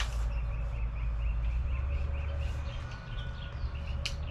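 A bird calling in a rapid, even series of short chirps, about five a second, over a steady low rumble, with a sharp click near the end.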